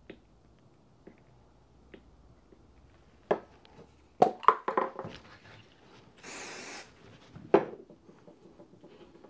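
Hands handling tools and small items on a wooden workbench: a few sharp knocks and a short clatter, then a brief hiss about six seconds in and one more knock.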